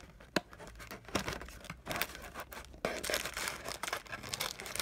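Wrapped trading-card packs crinkling and rustling as they are pushed down into a cardboard hobby box, with a few sharp clicks and taps, then denser crinkling from about three seconds in.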